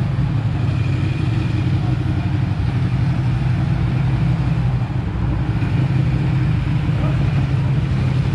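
City street traffic: a steady low engine hum from passing cars and buses, with a continuous road-noise wash.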